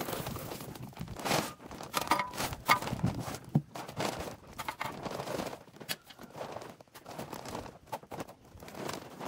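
Dry leaves and brush rustling and crunching in irregular scrapes as an overgrown yard is cleared by hand, with a few short, sharper knocks about two to three seconds in.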